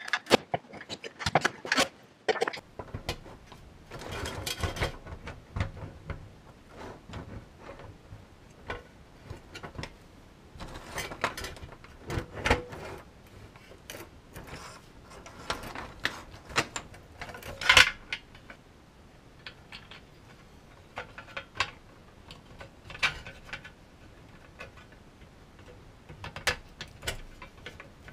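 Small parts being handled and assembled by hand: irregular clicks, taps and short rattles, with a denser clatter about four seconds in and one sharp click near eighteen seconds.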